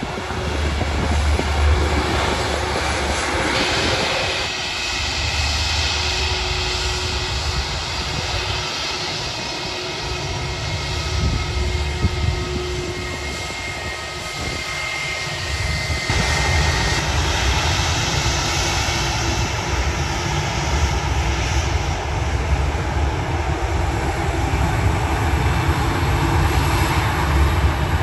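Jet airliners taxiing past at idle thrust, Airbus A320s and a Boeing 737-800: a steady jet-engine rumble with a high whine from about 4 to 17 s. Wind buffets the microphone throughout.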